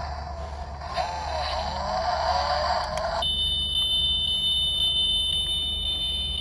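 Sound module of a 1:24 die-cast Ford Mustang GT500 model playing a recorded engine rev through its tiny speaker, thin and tinny, rising and falling in pitch. It cuts off suddenly about three seconds in, and a steady high electronic tone follows.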